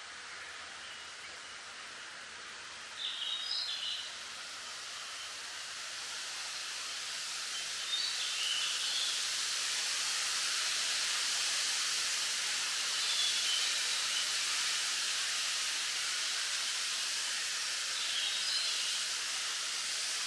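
Wind rustling through bamboo leaves as a steady hiss that swells louder about a third of the way in. A few short, high bird chirps stand out against it, about four times.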